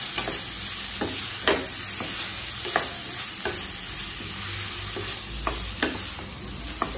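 Yam cubes sizzling in oil in a stainless steel kadai as a spatula stirs them: a steady frying hiss, with the spatula scraping and knocking against the pan every second or so.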